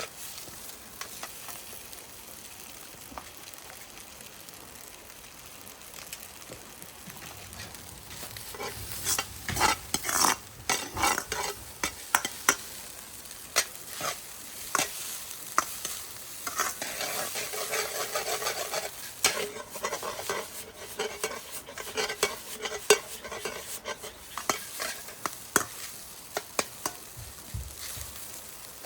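Fried rice sizzling in a hot frying pan over high heat. From about eight seconds in, a spatula scrapes and knocks against the pan over and over as the rice is stir-fried.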